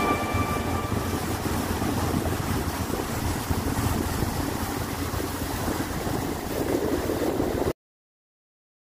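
Small motorboat under way: its outboard motor running under steady wind and water noise. The sound cuts off suddenly near the end.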